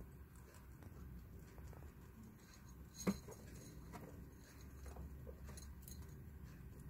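Guinea pig eating from a ceramic bowl: faint crunching and small scattered clicks, with one sharper knock about three seconds in.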